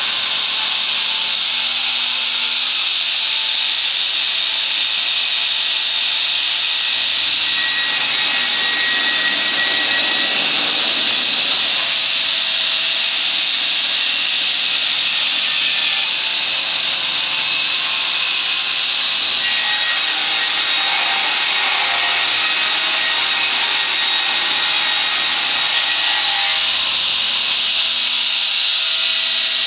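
Large circular blade of an electric swing-blade sawmill cutting lengthwise through a log: a loud, steady, high-pitched cutting noise with no let-up.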